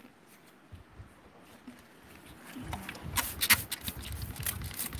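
Hand-pump spray bottle squirting water onto a river stone: a run of short, quick squirts starting about halfway in, over a low rumble.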